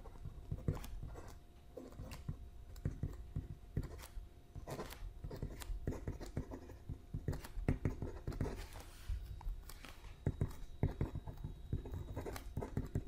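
Pen writing on paper: a string of short, irregular scratches and taps from the pen tip as a line of symbols and words is written out.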